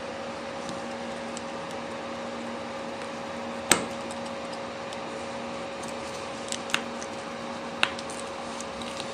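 A few sharp little clicks of a small screwdriver and tiny screws against an iPhone 4's frame as its corner screws are backed out: one louder click about a third of the way in and three softer ones later on, over a steady low hum.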